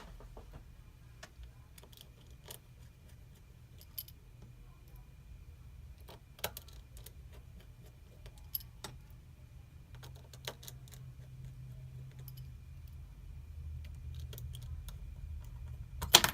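Small, scattered metal clicks and taps of a precision screwdriver and tiny screws being fitted into a phone's frame, over a faint steady hum. Near the end comes a louder, sharper clatter as a small part is dropped.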